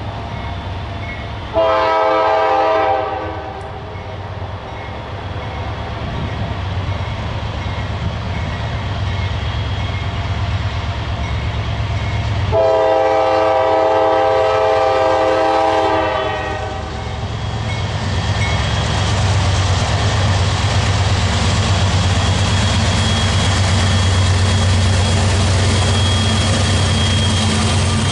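Freight locomotive's air horn sounding two blasts: a short one about a second and a half in, then a longer one of about three seconds near the middle. Under the blasts runs the steady low rumble of the passing train, which grows louder toward the end.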